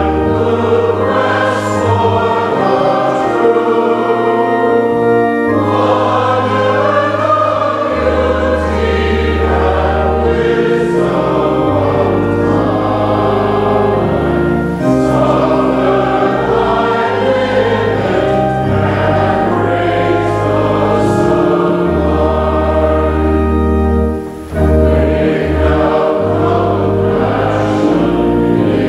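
A choir singing a hymn in several parts over held bass notes from a keyboard accompaniment, with a brief break between phrases about 24 seconds in.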